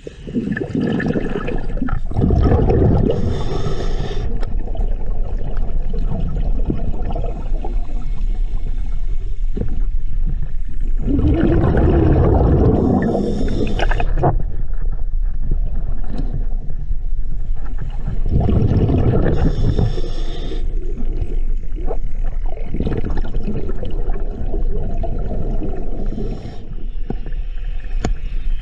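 Scuba diver breathing through a regulator underwater: a short hiss on each inhale and a loud rush of exhaled bubbles, roughly every eight seconds.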